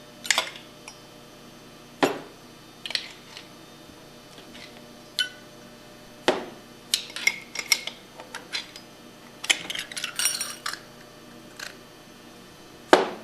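Two steel screwdrivers prying at a Hypro plunger pump's oil seal retainers. They make scattered sharp metal clicks and clinks, with a quick run of them around ten seconds in and a loud knock near the end.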